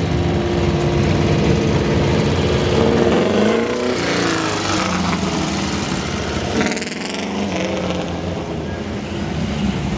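Cars driving past one after another with their engines running. A small open-wheel race car passes about four seconds in, its engine note sweeping as it goes by, and another engine note sweeps past a few seconds later.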